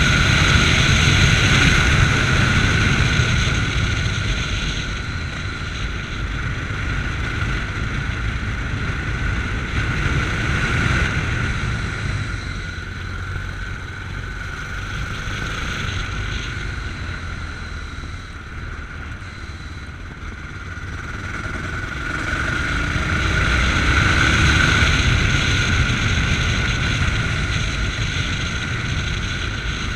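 Yamaha MT-03 motorcycle engine running on the road, with wind noise on a chest-mounted camera. The engine eases off to its quietest about twenty seconds in, then pulls harder again a few seconds later.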